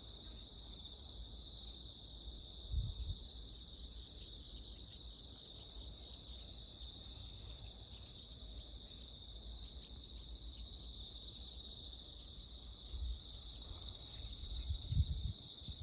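A steady high-pitched chorus of insects, unbroken throughout, over a low rumble, with a few short low bumps about three seconds in and again near the end.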